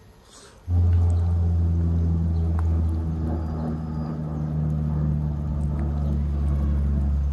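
An appliance's steady, loud low electrical hum that starts abruptly about a second in.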